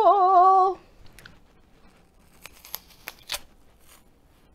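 A woman's held, wavering sung note ends within the first second. Then come crisp crunching snaps of teeth biting into a raw red apple, one about a second in and a quick cluster two to three seconds in.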